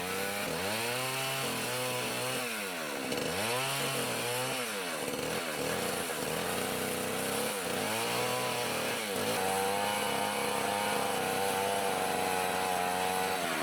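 A power tool motor runs continuously. Its pitch drops and recovers several times, as if working under load, then holds steady at high speed for the last few seconds.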